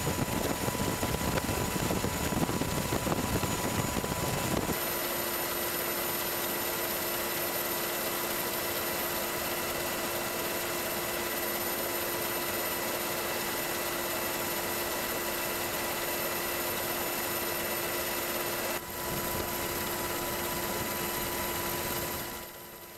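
Steady aircraft engine drone with a constant high whine. About five seconds in the low rumble drops away, leaving the whine and a steady hum, and the sound fades out near the end.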